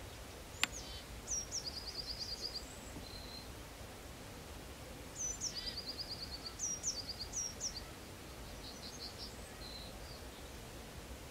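A small songbird singing two short, high-pitched song phrases, each a few down-slurred notes running into a quick series of repeated notes, about a second in and again about five seconds in, with fainter notes after. A single sharp click comes just before the first phrase, over a steady low outdoor background rumble.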